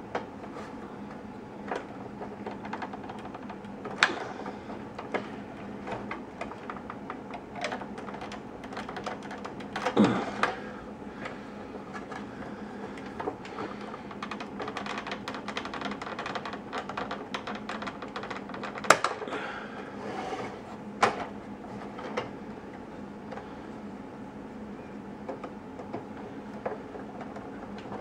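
Irregular plastic clicks, taps and knocks of a toy remote control truck's body and parts being handled and fitted back together by hand, with a few louder knocks about 4, 10, 19 and 21 seconds in, over a steady low hum.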